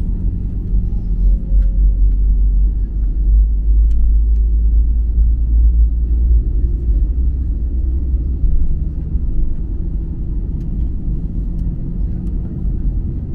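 Airbus A320 cabin noise while taxiing: a steady low rumble from the jet engines and the wheels rolling on the taxiway, heard inside the cabin. It is strongest in the first half.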